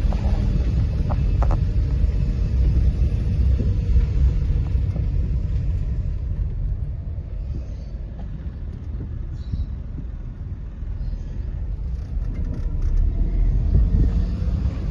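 Steady low rumble, a little quieter in the middle.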